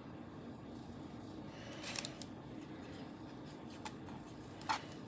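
Quiet small clicks and taps from a hand tool and fingers working a small polymer clay pendant on a glass work surface, with a brief rustle about two seconds in and the loudest click near the end, over a low steady room hum.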